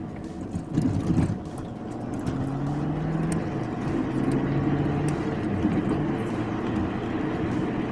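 Car engine and tyre noise heard from inside the cabin while driving at steady low speed.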